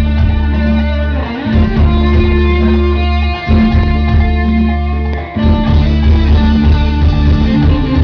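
A live band plays an instrumental passage with electric guitar over a heavy bass, in long held notes with brief breaks between phrases about every two seconds.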